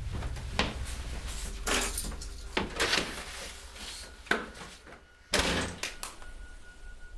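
Footsteps and the clicks and knocks of a front door's handle as it is opened. About five seconds in comes the loudest sound, a single thud that is most likely the door being shut.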